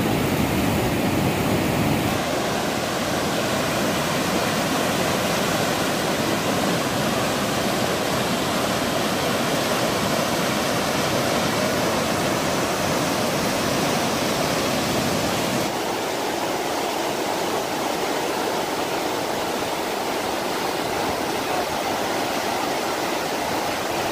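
Whitewater rapids rushing steadily, a dense, even wash of churning water noise. Its tone shifts abruptly about two seconds in and again about two-thirds of the way through.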